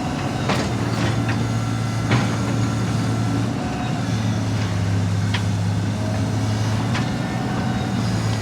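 Heavy diesel construction machine running steadily during building demolition, with several sharp knocks and clanks from the work spread through it.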